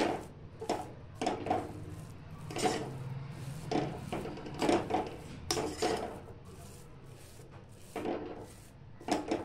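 Spatula scraping and stirring thick cooked semolina mixture around a metal kadhai, in a series of short irregular scrapes about once a second, pausing for a couple of seconds near the end.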